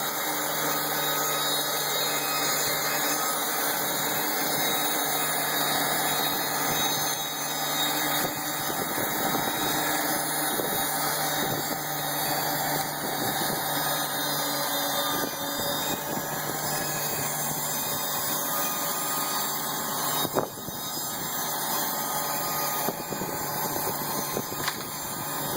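Sawmill machinery running steadily, a dense machine noise with several steady tones, and a single sharp knock about twenty seconds in.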